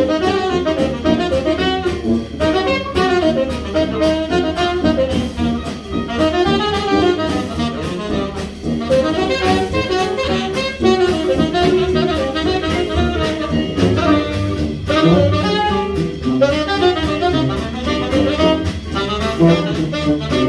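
A 1920s-style jazz band playing live, saxophone and brass over a steady beat.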